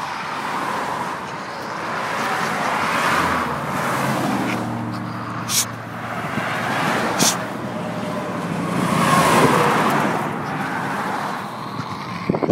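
Vehicles passing on the highway, the traffic noise swelling and fading twice, with a few sharp clicks.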